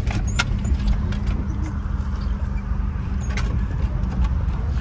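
Pickup truck driving, a steady engine and road rumble heard from inside the cab, with a couple of light clicks.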